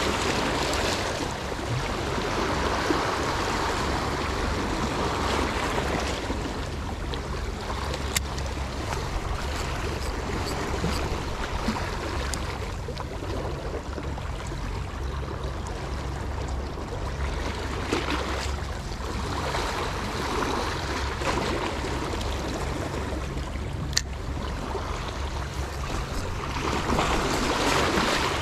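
Sea water washing and lapping, swelling and ebbing every several seconds, over a steady low rumble of wind on the microphone. Two sharp clicks stand out, about eight seconds in and again near the end.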